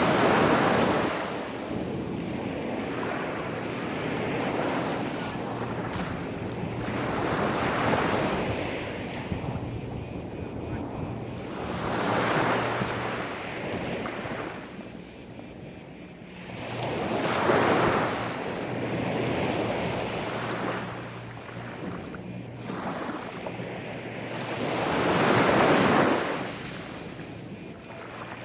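Gentle sea waves breaking and washing up onto a sandy beach, the surf swelling and fading every few seconds; the loudest washes come about halfway through and near the end.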